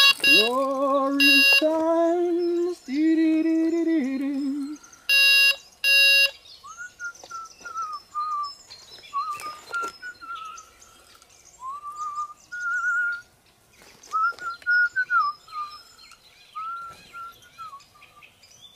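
Electronic beeping in the first few seconds, then a person whistling a wavering tune, in short phrases, through most of the rest.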